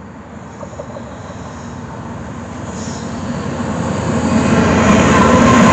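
BNSF diesel freight locomotive approaching at the head of a hopper train, its engine drone growing steadily louder as it nears.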